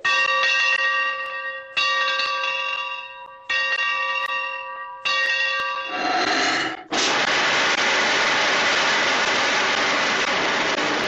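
A large locomotive-style bell struck four times, about every second and a half to two seconds, each stroke ringing and fading. About six seconds in a short puff, then from about seven seconds a loud steady hiss of a steam jet from a hose, used as the breathing of the cartoon train.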